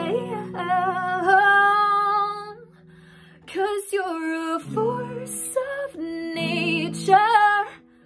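A woman singing held notes with vibrato over a strummed acoustic guitar; the sound drops away briefly about three seconds in.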